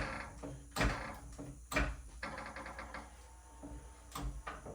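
Hand-tool work at a pickup's rear suspension: sharp metal clanks about once a second, then a quick ratchet-like rattle, then a few lighter knocks.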